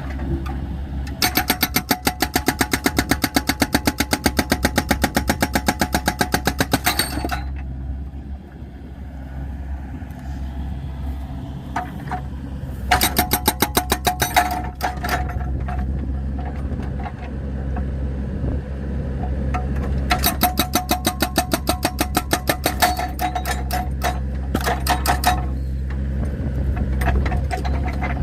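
Excavator's hydraulic breaker hammering rapidly on logs to split firewood, in three spells, the first about six seconds long, over the steady running of the excavator's diesel engine.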